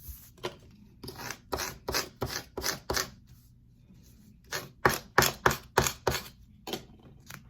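Short, quick scraping strokes, about three a second, as transfer mask is rubbed down onto cut vinyl lettering. A louder run of strokes comes about five seconds in.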